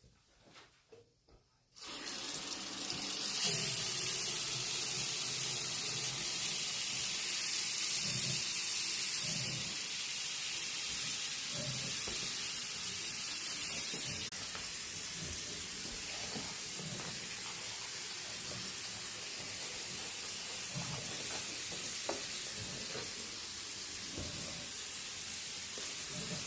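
Bathroom sink faucet turned on about two seconds in and left running: a steady stream of water splashing into the basin.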